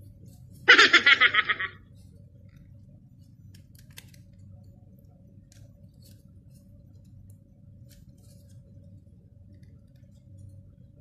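A short rasping rattle of rapid clicks, about ten a second, lasting about a second and starting about a second in, from plastic packaging being handled. Otherwise only a few faint handling ticks over a low room hum.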